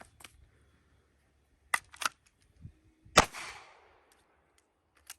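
A single pistol shot about three seconds in, a sharp crack with a ringing tail, fired from the draw in a handgun drill. Two short sharp clicks come about a second before it.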